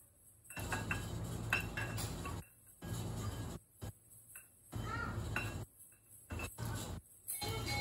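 Metal cake turntable turning and a metal spatula scraping buttercream smooth, with light metallic clinks, in stretches of a second or two broken by short silences.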